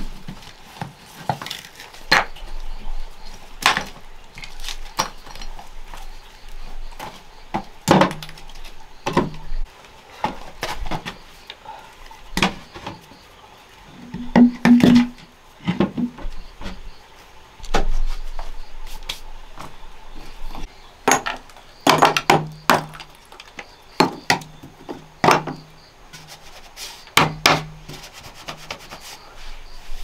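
Loose stones clacking and knocking against each other as they are set down and stacked around the foot of a bamboo post. The knocks are irregular, some coming in quick clusters and some with a dull thud.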